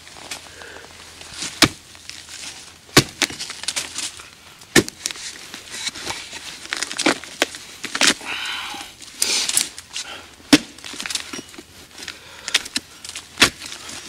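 Rotten wood of a dead tree stump being hacked with a hatchet and broken apart by hand: about six loud, sharp cracks at irregular intervals, among smaller crackling and splintering.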